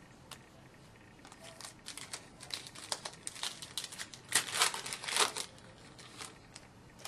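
Wrapper of a hockey card pack crinkling as it is handled and opened: a run of quick crackles that thickens from about a second in, is loudest around four to five seconds in, and then dies away.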